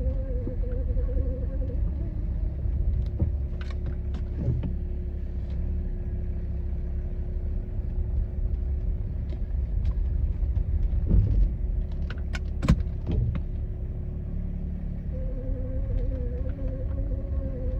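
A BMW E91 xDrive's drivetrain humming while the car is driven, over low road rumble: a steady hum that shifts to a lower tone about two seconds in and comes back to its first pitch near the end. A few sharp clicks around four seconds in and again around twelve seconds in.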